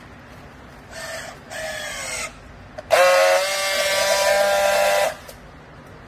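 Battery-powered handheld strapping tool on a plastic bale strap: two short motor whirrs about a second in, then a louder steady whine for about two seconds. The sequence is typical of the tool tensioning the strap and then friction-welding it.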